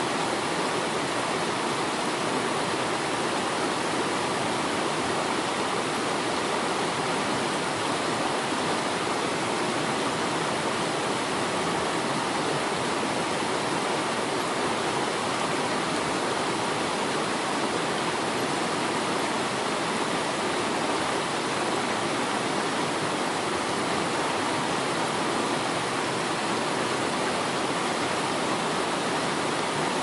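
Waterfall recording: a steady, unbroken rush of falling water.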